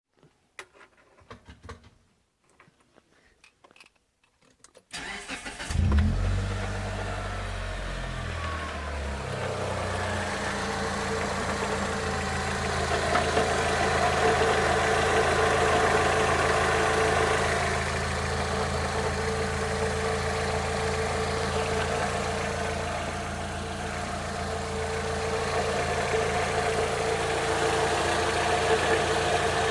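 Mitsubishi Lancer IX 2.0-litre four-cylinder engine started about five seconds in after a few faint clicks; the revs flare and fall back, and it settles to a steady idle. The idle carries the noise the owner takes for a worn gearbox input shaft bearing.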